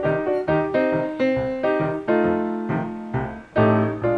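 Background piano music: single notes struck about twice a second, each dying away.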